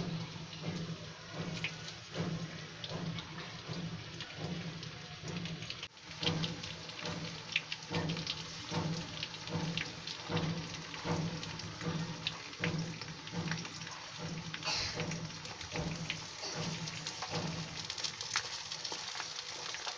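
Hilsa fish pieces frying in hot mustard oil in a wok: a steady sizzle crackling with many small pops, with a brief break about six seconds in.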